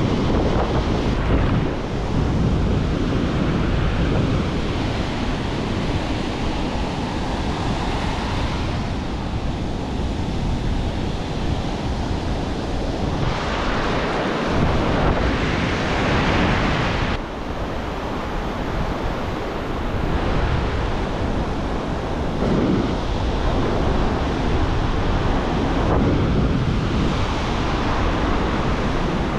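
Ocean surf breaking and washing up over the sand in the shallows, swelling louder a couple of times as waves run in, with wind buffeting the microphone.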